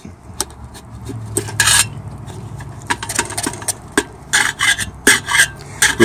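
Hands working the metal burner parts and cotton wick of a Perfection 1550 kerosene heater as the wick is fitted. Scattered light clicks and short rubbing scrapes, with a few louder scrapes about halfway through and again near the end.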